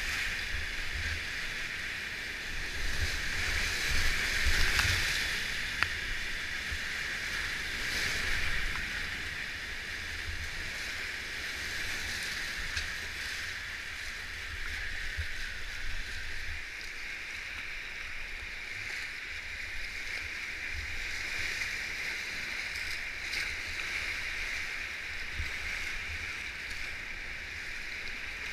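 Rushing whitewater of a creek at high water, heard from a kayak running the rapids: a steady roar of water with louder surges of splashing about three to five seconds in and again around eight seconds.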